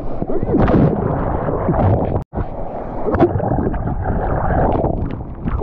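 Rushing, churning whitewater and splashes against a mouth-mounted GoPro as a surfer duck-dives a breaking wave. The sound cuts out for a moment about two seconds in, then goes muffled while the camera is underwater.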